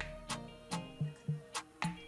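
Background music with a light ticking beat.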